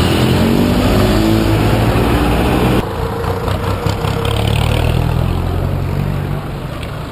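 A motorcycle engine accelerating close by, its pitch rising steadily, cut off abruptly about three seconds in. Then a steadier, lower rumble of vehicle engines in road traffic.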